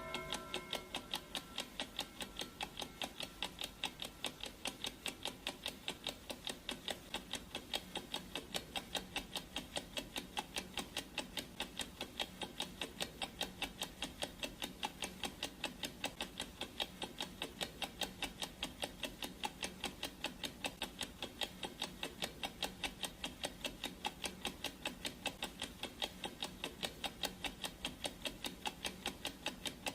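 Clock-ticking sound effect: a steady, evenly spaced tick at a few ticks a second. The last of a gong's ring fades out in the first second.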